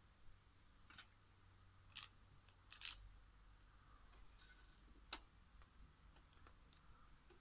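Faint snips and clicks of side cutters working on a power cable's insulation: about six short, sharp clicks at irregular intervals, the loudest about three seconds in.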